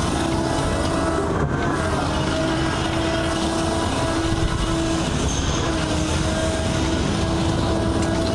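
Steady machine noise from a heavy concrete pump truck: a low rumble with a humming tone that comes and goes.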